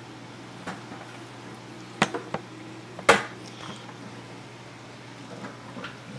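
A few sharp clicks and knocks of hard objects, a close pair about two seconds in and the loudest about three seconds in, over a steady low hum.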